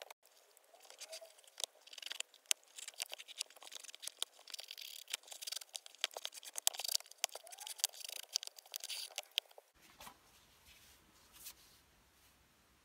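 Hands in thin plastic gloves lacing a trainer: the gloves crinkle and the flat lace rustles and scrapes through the eyelets in a dense run of small scratchy clicks. It turns much quieter about ten seconds in, with only a few faint ticks.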